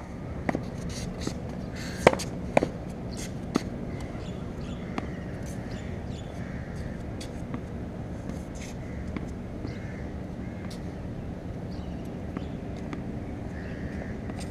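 Tennis ball hit with a racket and bouncing: a few sharp pops in the first five seconds, the loudest two about half a second apart near two seconds in, over steady background noise.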